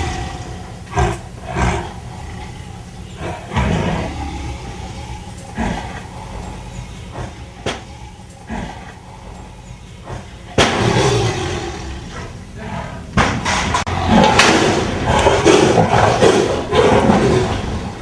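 Sumatran tiger growling and roaring, with scattered knocks and thuds. It grows louder about two-thirds of the way in.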